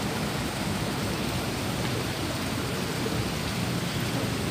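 Steady wash of water noise, an even hiss with no breaks or distinct events.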